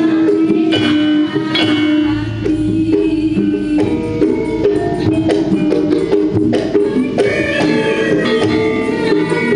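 Live campursari music: a Javanese gamelan ensemble with kendang drum plays a song with a steady beat and ringing struck notes.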